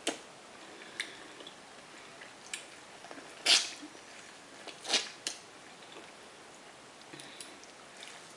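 Close-up mouth sounds of a person biting and chewing corn: short, sharp smacks and slurps spaced a second or so apart, the loudest about three and a half seconds and five seconds in.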